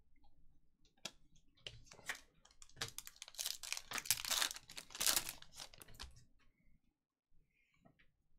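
Foil wrapper of a Panini Select soccer card pack being torn open and crinkled: a dense burst of crinkling about three seconds long in the middle. Light clicks and taps of cards being handled come before and after it.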